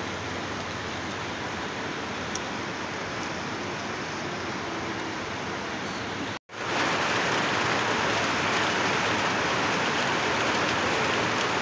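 Rain falling steadily on trees and rooftops, an even dense hiss. About halfway through it drops out for an instant and comes back louder.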